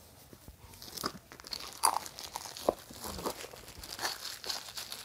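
Clear plastic shrink-wrap being torn and peeled off a cardboard phone box, crinkling and crackling in irregular short snaps.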